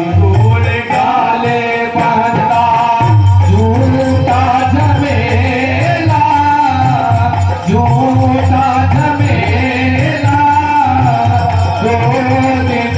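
Bhajan music played through loudspeakers: a held, bending melody over a steady drum beat and jingling hand percussion.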